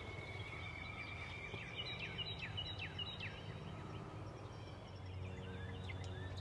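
A songbird singing: a held whistle, then a quick run of about six down-slurred notes, with fainter high notes near the end, over a low steady rumble.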